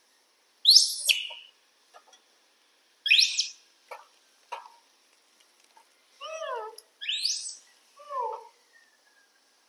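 Young macaques calling: three sharp, very high rising squeals about a second, three and seven seconds in, with lower falling whimpering calls between them. A few light clicks and taps sound in the gaps.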